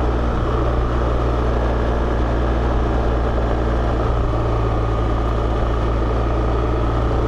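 BMW GS Adventure motorcycle riding at a steady speed on a dusty dirt road: a steady engine note under a constant rush of noise, with no change in pitch.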